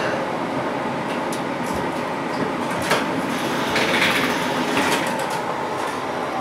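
Düsseldorf Stadtbahn light-rail car heard from inside, running slowly: a steady rumble and hum, with a sharp click about three seconds in and a brief swell of hiss around four seconds.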